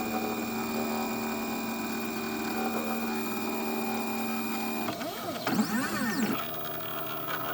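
Stepper motors of a CNC 3018 Pro whining at a steady pitch while the machine makes a long straight move. About five seconds in they give a quick run of rising and falling pitch sweeps as the axes speed up and slow down through short moves, then settle to a quieter hum.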